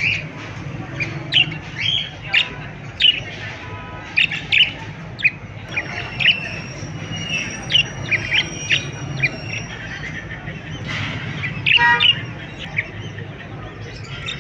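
Small pet parrots chirping and squawking in many quick, short calls, over a steady low hum.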